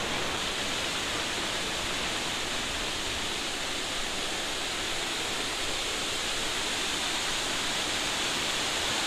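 Kaveri River waterfall: heavy water pouring over and between rocks in a steady, even rush.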